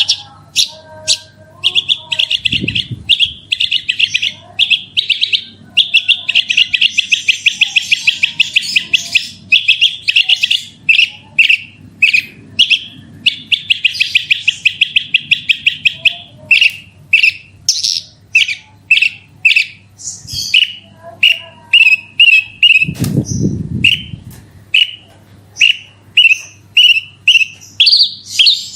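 Javan bush lark (branjangan) singing vigorously: a stream of sharp chips broken by long, rapid rolling trills. Two dull low thuds, about two seconds in and again near the end, and a faint steady low hum sit underneath.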